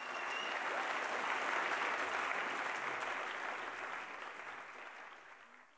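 An audience applauding, a dense steady clapping that dies away over the last couple of seconds.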